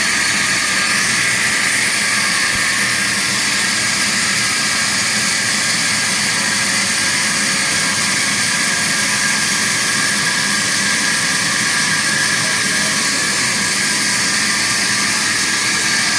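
A 42-inch vertical band saw running steadily, a constant loud hiss-like machine noise that holds unchanged throughout.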